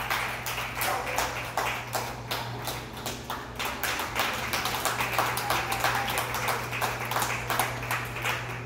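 Scattered hand clapping from a few people, irregular sharp claps several times a second, over a steady low hum.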